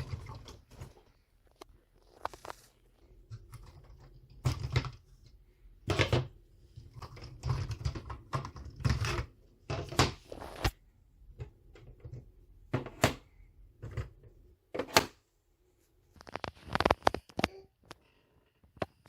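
Plastic LEGO pieces being handled and set down, giving irregular clicks and knocks with short low rubbing sounds between them.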